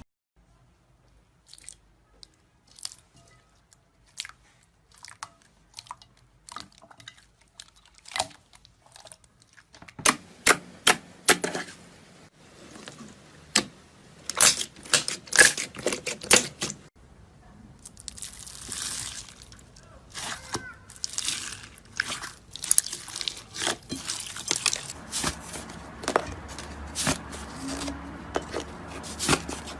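Slime being mixed and squished by hand, making sticky clicks and pops. Sparse and quiet at first, then much busier and louder from about ten seconds in.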